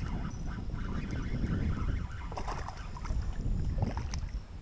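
Wind buffeting the microphone in a low, uneven rumble. About four seconds in, a hooked bass splashes and thrashes at the surface as it is reeled in.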